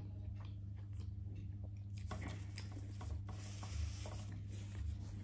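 A person eating: chewing with soft mouth smacks and small scattered clicks, over a steady low hum.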